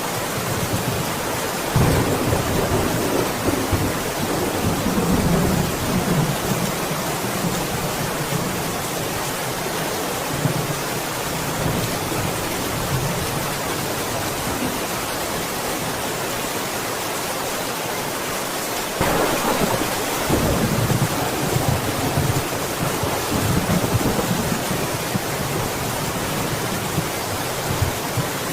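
Steady heavy rain, with low rumbles swelling up about two seconds in and again about two-thirds of the way through.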